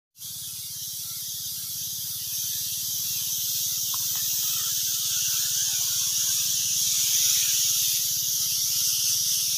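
Pesticide spray hissing steadily from the hand-held nozzles of a motor-driven two-outlet pump sprayer, growing slightly louder, with the low hum of the pump engine underneath.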